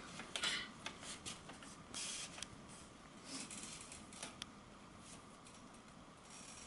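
Faint, scattered rustling of paper and envelopes being handled, with a few soft clicks.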